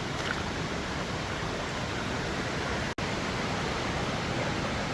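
Steady rush of flowing river water, broken by a split-second dropout about three seconds in.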